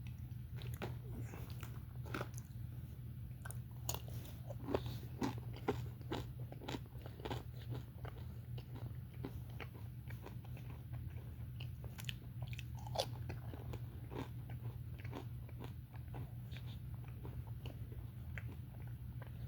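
A person chewing and biting into a bacon, egg and cheese bagel sandwich close to the microphone: irregular crunches and wet mouth clicks throughout, over a steady low hum.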